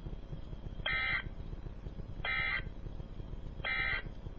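Emergency Alert System end-of-message signal: three short bursts of digital data tones, about a second and a half apart, over a low steady hum.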